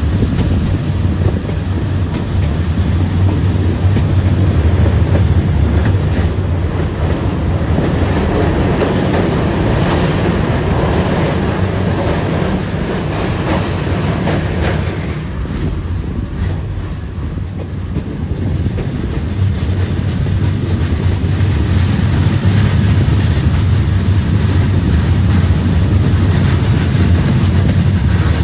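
Vietnam Railways passenger train running along the track, heard from aboard: a steady rumble of wheels on rail with clicking over the rail joints. It eases off briefly a little past halfway.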